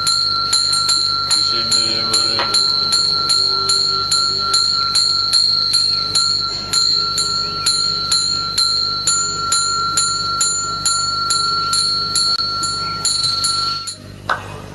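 A small bell rung rapidly and evenly, about three strikes a second, its two clear ringing tones sustained over a faint low drone. It stops about a second before the end.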